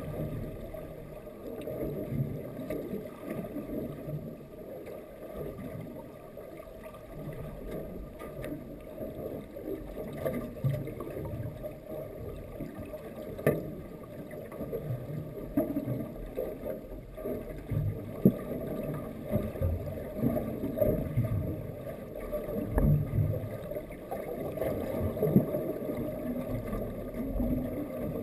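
Muffled underwater water movement heard through a camera's waterproof housing: a low, uneven rumbling and sloshing, with a few sharp knocks.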